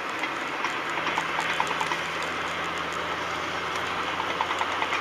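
Steady vehicle and road noise picked up by a dashcam: a low engine-like hum under an even hiss, with faint scattered ticks.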